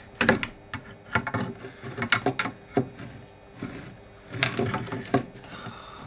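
Irregular clicks and knocks of a clear plastic dust shoe being worked loose from a CNC router's spindle by hand and set down on the MDF wasteboard, with a busier run of knocks a little past the middle.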